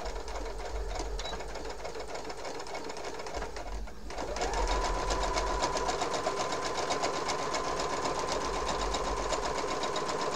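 Brother electric sewing machine stitching a seam through fabric, a fast even run of needle strokes. It runs more slowly for the first few seconds, eases off briefly about four seconds in, then speeds up with a rising whine and runs steadily faster.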